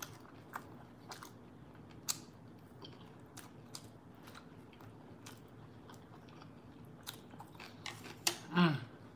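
Close-miked mouth sounds of a person chewing a bite of grilled salmon: soft wet smacks and sharp clicks scattered a second or so apart. Near the end comes a short hum that falls in pitch.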